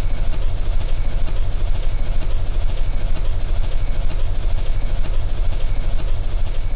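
Sound effect of a flying drone: steady whirring rotor noise with a heavy, rapidly fluttering low rumble.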